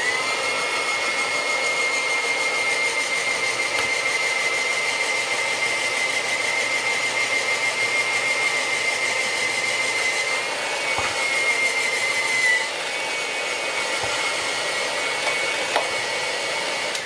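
Presto Salad Shooter electric slicer/shredder running, its motor giving a steady high whine as baby carrots are pushed down the chute and shredded. It spins up right at the start, and its pitch wavers briefly about two-thirds of the way through.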